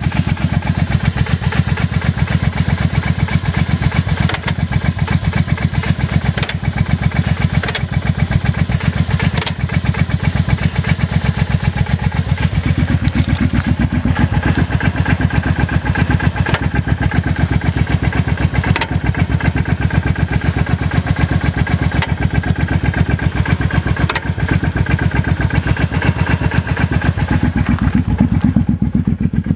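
Motorcycle engine idling steadily, with a faint sharp clunk recurring every second or two over the engine's beat: the clunking sound the owner is showing as a problem.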